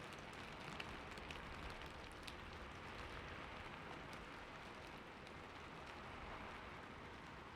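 Steady rain falling, a soft even hiss with faint scattered drop ticks.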